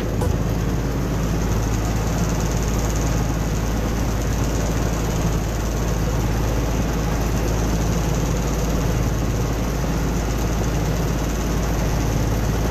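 Engine of an outrigger bangka boat running steadily under way, a constant drone over the rushing of wind and water.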